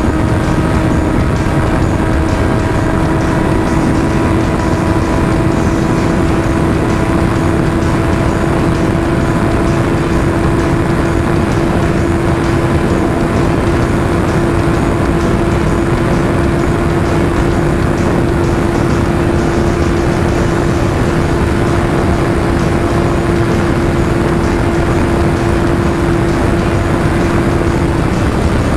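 Sport motorcycle engine holding a steady drone at constant highway cruising speed, under heavy wind rush on the microphone.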